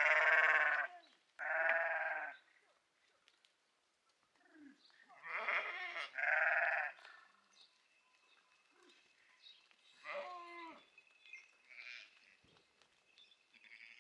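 Sheep bleating from a flock: two loud bleats in the first two seconds, two more about five to seven seconds in, then fainter, shorter calls.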